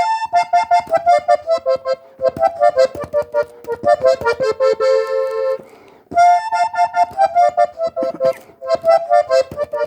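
Diatonic button accordion playing a melody alone, in quick runs of notes. It holds one chord from about four seconds in, breaks off briefly, then the quick notes resume.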